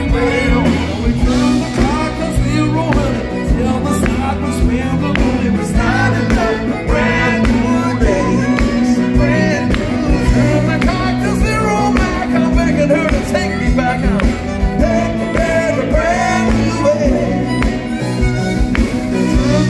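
Live pop-rock band playing loudly through a PA: electric bass and drums with a wavering melodic lead line on top, heard from the audience.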